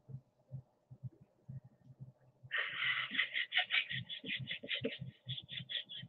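A woman laughing: a rapid, pulsing run of laughter that starts suddenly about two and a half seconds in and keeps going, after quiet breathy sounds.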